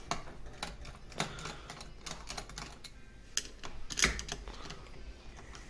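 Screwdriver undoing the small screws on a pneumatic solenoid valve manifold: irregular light clicks and taps of the tool tip and metal parts.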